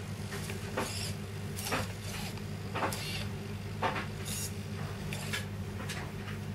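Servo motors of a MeArm robot arm running in short, irregular bursts as the arm moves under joystick control, over a steady low hum.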